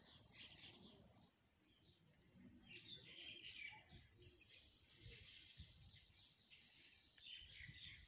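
Faint, busy chirping of small birds: many short high chirps overlapping without pause, with a soft low rumble underneath.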